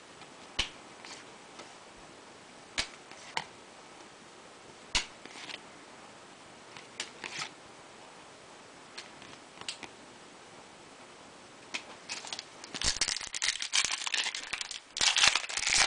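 Trading cards being handled: scattered single sharp flicks and snaps of card stock as cards are shuffled one behind another. About thirteen seconds in, a dense crinkling of a pack wrapper being handled takes over.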